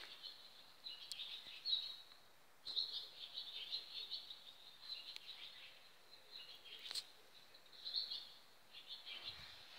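Birds chirping and twittering, many short high calls overlapping, with a sharp click about seven seconds in.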